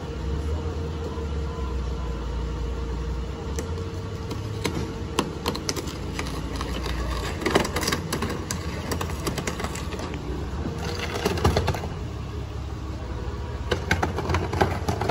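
Street noise: a steady low engine-like hum that fades out about halfway, with irregular sharp clicks and clatter in small clusters from about four seconds in.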